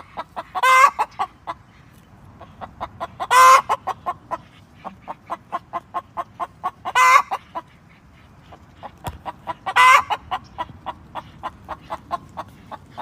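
Chicken clucking in a steady run of short clucks, about two to three a second, broken by a louder, drawn-out squawk about every three seconds, four in all.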